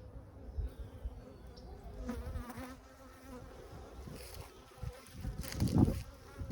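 Honeybees buzzing around the hive, agitated after being disturbed: a steady hum, with a bee passing close to the microphone about two seconds in. A louder low rumble comes near the end.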